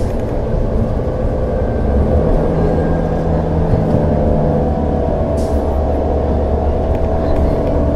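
2011 New Flyer C40LF transit bus running on its Cummins Westport ISL-G natural-gas engine, a steady low drone with several steady tones. A whine climbs slightly about five seconds in.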